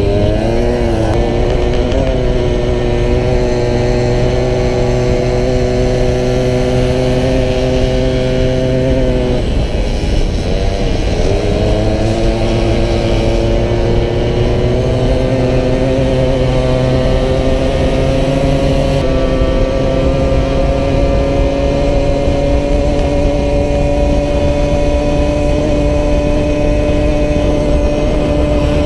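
A Solex racing moped's small two-stroke engine running hard at steady high revs, heard from on board over a low wind rush. About nine seconds in the pitch drops sharply as it slows, then climbs slowly back up for the rest of the time.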